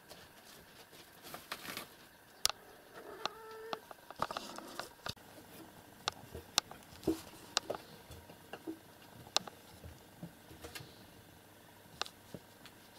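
Scattered light clicks, taps and soft rustles of cats moving about on wooden furniture and bedding, with a brief squeak about three seconds in.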